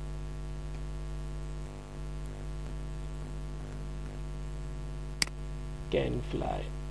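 Steady electrical mains hum with its even series of overtones, picked up by the recording chain, with one sharp click about five seconds in.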